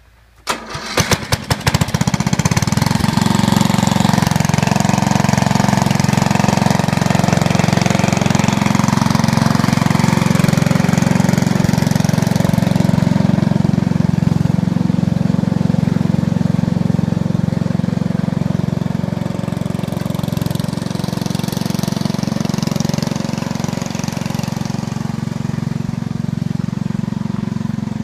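Cold start of a 13 hp lawn tractor engine: the starter cranks in short uneven strokes for about two seconds, the engine catches, then runs steadily.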